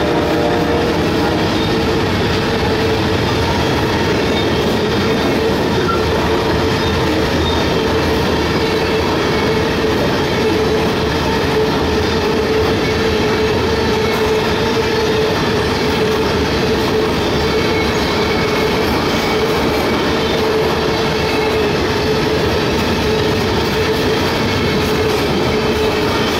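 Freight train of covered hopper cars rolling past close by: a loud, steady rumble of wheels on rail, with a steady whining tone running through it.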